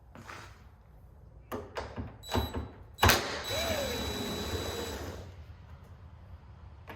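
A few knocks as a 10mm socket on a cordless drill is fitted onto a door handle bolt inside the car door, then the drill runs with a whine for about two seconds, spinning the bolt out.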